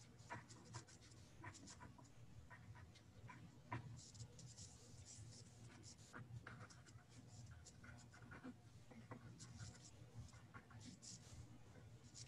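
Faint pen-on-paper writing: scattered scratching strokes and light ticks over a low steady hum.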